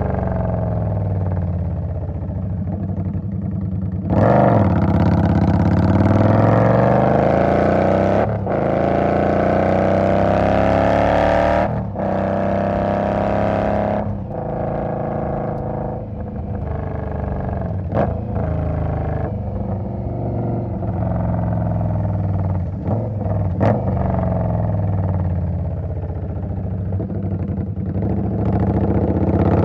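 2020 Indian Scout's V-twin engine running, its pitch rising and falling again and again as the revs climb and drop, with short sharp breaks between the sweeps.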